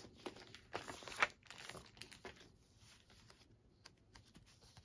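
Paper sheets and a clear plastic bag rustling and crinkling as they are handled, a run of short rustles in the first couple of seconds, then only faint ones.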